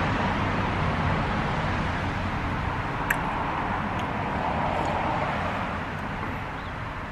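Road traffic noise from a nearby street: a steady rush that slowly fades toward the end. Two faint clicks come about three and four seconds in.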